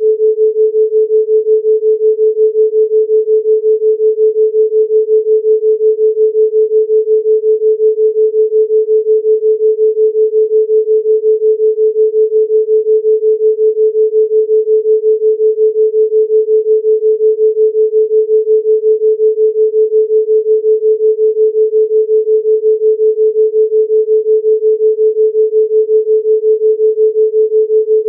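Steady 432 Hz pure sine tone with an even, rapid pulsing in loudness several times a second: a theta-rate beat tone.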